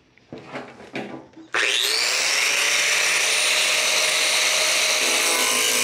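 Handheld power grinder grinding out spot welds in car-body sheet metal. It starts with a few light knocks of handling, then spins up quickly about a second and a half in and runs steadily with a high whine.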